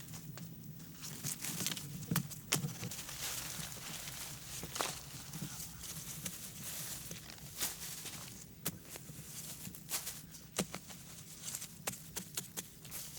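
Irregular clicks and knocks at uneven intervals, with a rustling or scraping haze between them, like hands or feet working among stones, sticks or leaves.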